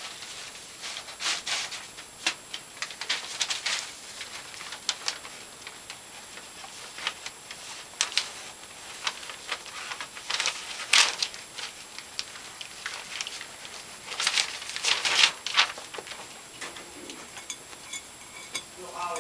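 Puppies scuffling about on bedding: irregular scratchy rustles of fabric and paper and light clicks of claws, with louder bursts about ten and fifteen seconds in.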